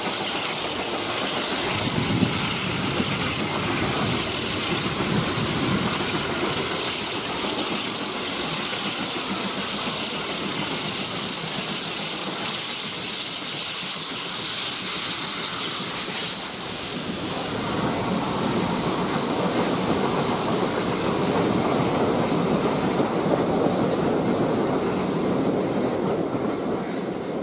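GWR Modified Hall 4-6-0 steam locomotive 6990 'Witherslack Hall' approaching and passing close by, hissing steam that is loudest about halfway through as it goes past. Its coaches then roll by on the rails with a steady rumble.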